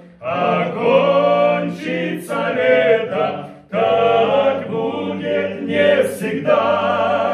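Men's vocal ensemble singing a hymn in harmony, sustained sung phrases with two short breaths between them.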